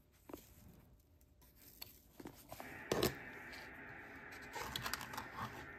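Small handling noises from a brass powder-flask spout and a plastic can of black powder: a few light clicks, then a single knock about three seconds in as the can is set down on a wooden bench. A faint steady hiss follows, with a few more soft clicks.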